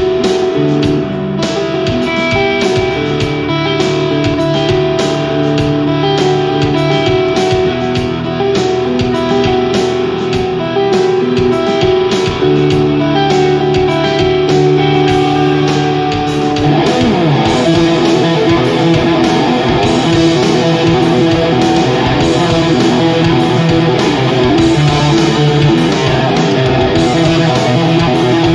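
Instrumental rock: electric guitar playing held melodic notes over a steady percussive beat. About two-thirds of the way in, the guitar switches to a denser, busier passage that fills out the sound.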